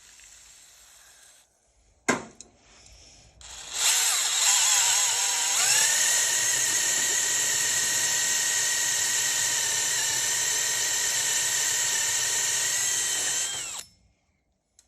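DeWalt cordless drill drilling out a dense rubber bushing from a Porsche 928 rear lower control arm. After a click about two seconds in, the motor starts and its whine rises briefly to a steady pitch. It runs for about ten seconds and cuts off sharply.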